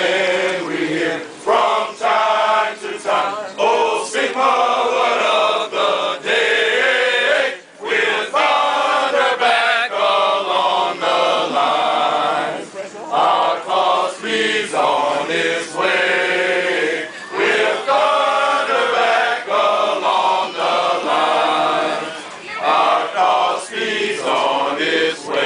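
A group of fraternity brothers singing together in unison, in phrases broken by short pauses.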